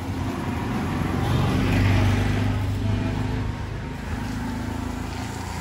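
A motor vehicle passing close by on a street. Its engine hum swells to its loudest about two seconds in and then fades.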